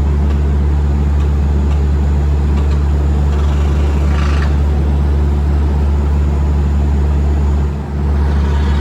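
Air compressor engine running steadily with a deep, even drone, dipping briefly near the end.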